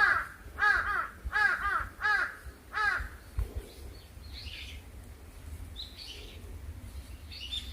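Crows cawing: five loud caws in a row, about two-thirds of a second apart, then a few faint, higher bird calls.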